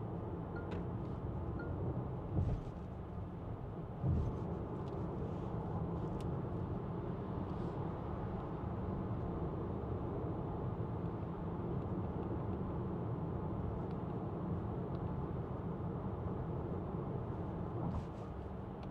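Steady low road and tyre rumble inside the cabin of a moving 2024 Renault Grand Koleos hybrid, with two thumps about two and four seconds in.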